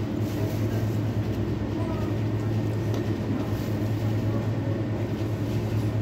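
Steady low hum of a ventilation fan, with a few faint crunches of something being chewed.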